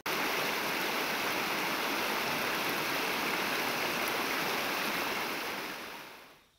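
Shallow river rushing over rocks through rapids: a steady rush of water that cuts in suddenly and fades out near the end.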